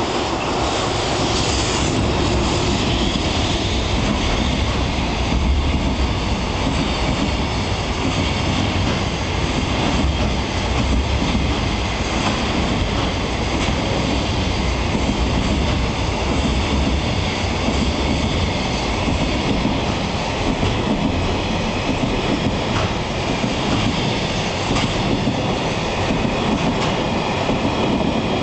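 Container freight train hauled by an EF210 electric locomotive passing through at speed, a steady loud rumble of many wagon wheels rolling along the rails.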